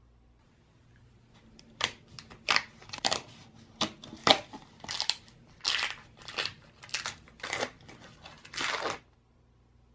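A block of cream cheese being unpacked by hand, its paper carton opened and its foil wrapper peeled back. About a dozen short crinkling rustles begin about two seconds in and stop abruptly near the end.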